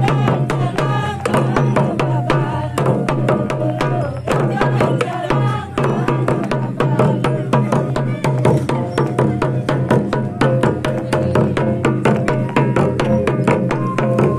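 Live folk drumming: a double-headed barrel drum beaten with a stick in a fast, steady rhythm of sharp strokes, with a bamboo flute playing a melody over it.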